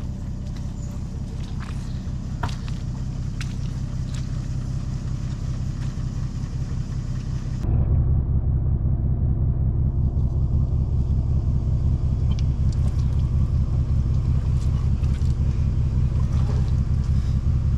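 Toyota Land Cruiser engine running with a steady low rumble and a few faint knocks. About eight seconds in it turns abruptly louder and deeper as the higher hiss falls away, then runs on steadily.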